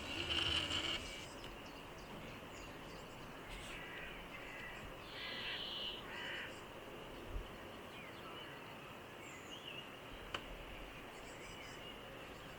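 Harsh bird calls: a loud one in the first second and a few more about five to six seconds in, over a faint steady outdoor background.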